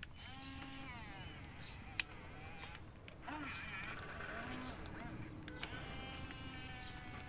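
Electric motors of a radio-controlled toy excavator whining as the arm, stick and bucket move, the pitch gliding up and down and stopping and starting with each control input, with a sharp click about two seconds in.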